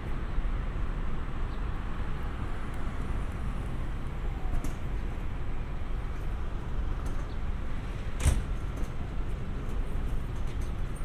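Steady low outdoor rumble, as of distant vehicles, with scattered faint ticks and one sharp click about eight seconds in.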